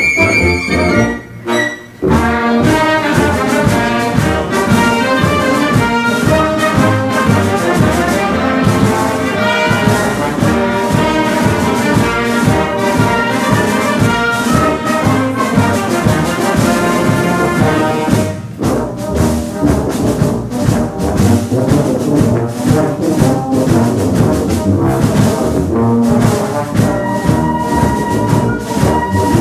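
A concert wind band playing, with brass to the fore. There is a brief break about a second in, then the full band enters; near the end a high note is held over the band.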